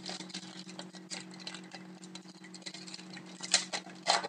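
Foil trading-card pack being torn open and crinkled by hand: a run of small crackles and rustles, loudest in a couple of clusters near the end, over a steady low hum.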